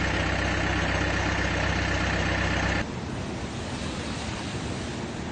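A vehicle engine idling with a steady low hum, cut off abruptly about three seconds in and replaced by a steady, quieter hiss like wind on the microphone.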